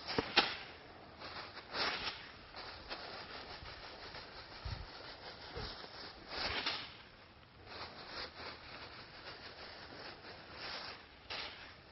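A plastic bag rustling in short bursts as it is rubbed and waved over a horse's neck and head. Near the middle there are a couple of soft low thumps.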